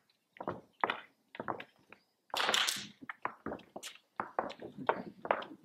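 Dancers' shoes striking the stage floor: an irregular series of thuds and taps from steps and stamps, with a brief louder rush of noise about two and a half seconds in.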